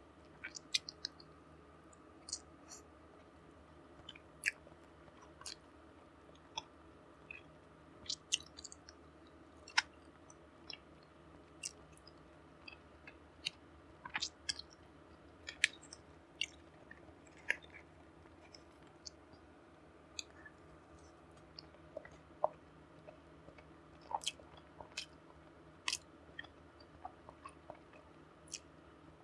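A person chewing food close to the microphone: irregular short wet clicks and smacks of the mouth, over a faint steady hum.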